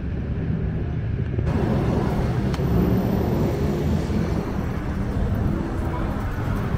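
Busy city street ambience at night: a steady rumble of road traffic and passing vehicles, heard from the sidewalk.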